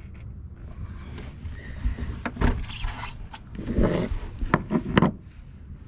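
Rustling and scraping from a person shifting about and handling small hardware, with a few sharp knocks and a louder dull rumble near the middle.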